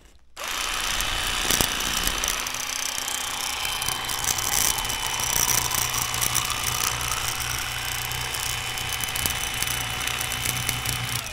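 Electric fillet knife switching on about half a second in and running with a steady motor whine, its twin reciprocating blades cutting through a small bass.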